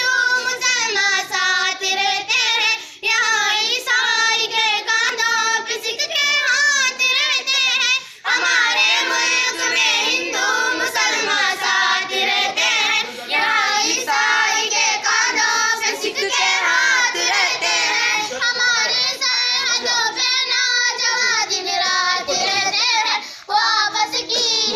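A group of children singing a song together, phrase after phrase, with brief breaks between lines.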